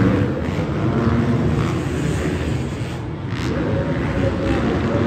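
Several motocross bikes' engines revving and running on an indoor arenacross track, the pitch rising and falling as riders work the throttle; one engine climbs to a higher, steadier pitch about three and a half seconds in.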